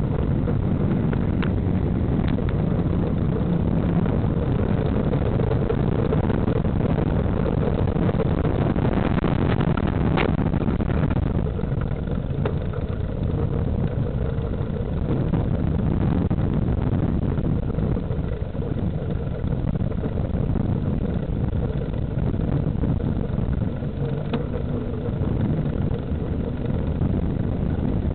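Riding noise picked up by a small camera mounted low on a fixed-gear bicycle's frame: a steady low rumble of wind on the microphone and tyres on pavement, with a few sharp clicks and rattles from the mount.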